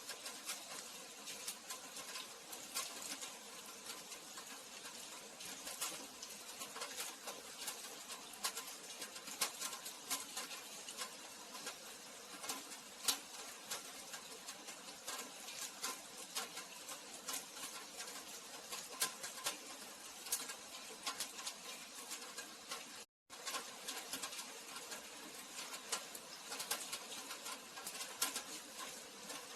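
Steady rain falling, with many close drops pattering and ticking. The sound cuts out for a split second about two-thirds of the way through.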